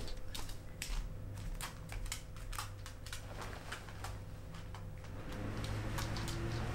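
Bedding rustling and crackling as a duvet is lifted and bundled up on a bed: a run of quick, irregular crisp rustles over a faint steady hum.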